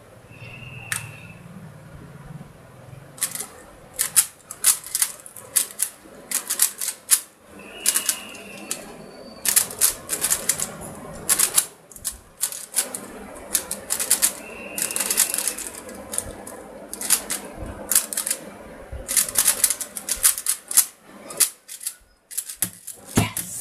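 A 3x3 speed cube being turned fast with one hand: bursts of rapid plastic clicking and clacking as the layers snap round, broken by short pauses.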